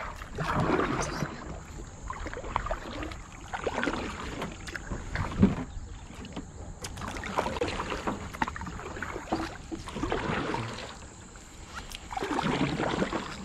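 Kayak paddle strokes through the water: a swishing splash about every one and a half to two seconds as the blades dip and pull.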